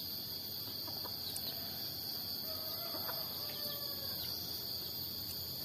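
Free-ranging chickens calling softly a few times, mostly in the middle, over a steady high drone of insects.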